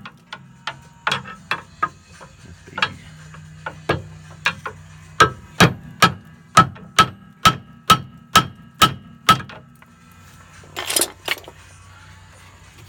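Repeated hammer blows on steel, about two a second at their steadiest, with a metallic ring, knocking the seized lower ball stud of a rear stabilizer bar link loose. The blows stop about nine seconds in, and a short rasping noise follows a little later.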